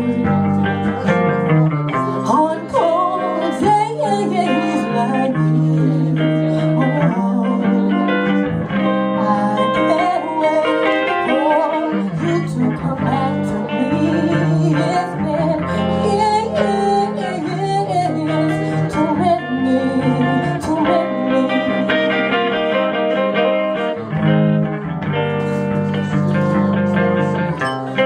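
Live music led by guitar, with low held notes underneath and a melody line that bends in pitch.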